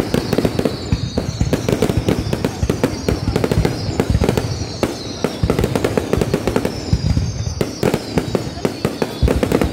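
Aerial fireworks display: a continuous barrage of bangs and crackling bursts, with high whistles falling in pitch that repeat every second or two.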